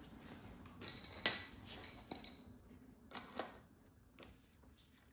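Metal clinks as a steel freewheel tool is fitted onto a newly threaded bicycle freewheel on the rear hub: a handful of sharp clinks, the loudest about a second in, then a few more before it goes quiet.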